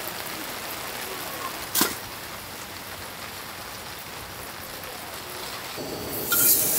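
A steady, even hiss of background noise with one sharp click about two seconds in; near the end a loud sizzling starts as pork meets a hot pan.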